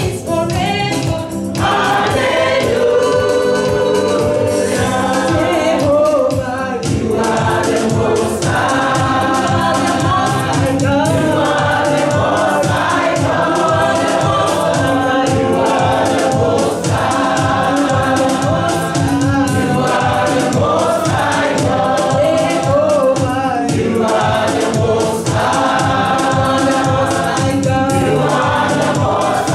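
A choir singing a gospel worship song over a steady beat.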